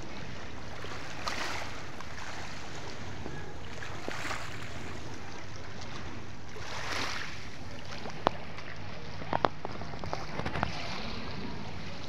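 Small waves washing and lapping against shoreline rocks, a soft swell of splashing about every three seconds over a steady low rumble. A few sharp clicks come about two thirds of the way through.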